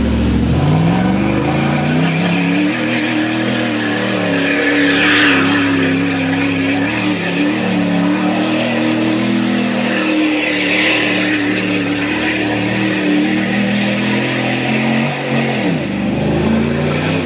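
Lifted Dodge Ram 1500 pickup's engine revving up about half a second in and held at high revs while its wheels spin on loose gravel, throwing dirt. The revs drop back near the end.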